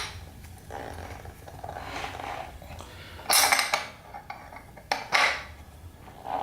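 Metal-on-metal work with a wrench on a nut and threaded stud: low scraping and clinking, then two louder metallic scrapes or clanks with a sharp click between them.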